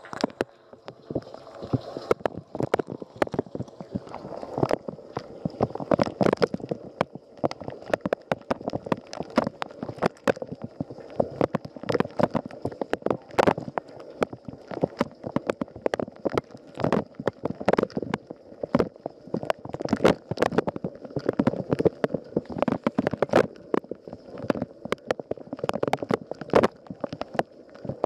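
Water spraying and sloshing inside a running Rosenlew dishwasher, heard from within the tub: a steady gurgling wash broken by many irregular sharp splashes close by.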